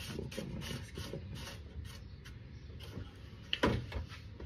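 Light clicks and rustles of parts and tools being handled, then a sharp knock about three and a half seconds in, with a smaller one just after.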